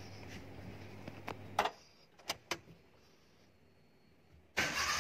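A few sharp clicks of the Maruti 800's ignition key being turned, then near the end its 796 cc three-cylinder petrol engine cranks and fires, catching at once now that the faulty MAP sensor has been replaced.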